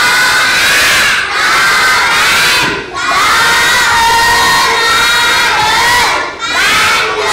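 A class of young children chanting aloud in unison, loud shouted phrases broken by short pauses about a second, three seconds and six and a half seconds in. This is the sound of a whole class reading a word card aloud together.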